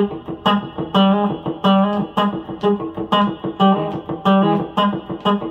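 Fender Player Series Telecaster electric guitar through a Fuchs amp head playing a chicken pickin' rhythm: short, clipped, clucking D9 chord stabs at the 7th fret, slid into from a fret below, about two a second, with reverb.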